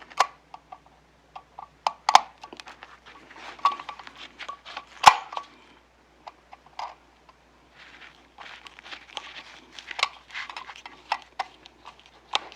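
Irregular small clicks, taps and scrapes of a screwdriver on a flat-head screw and a wall plate, with one sharp, louder click about five seconds in.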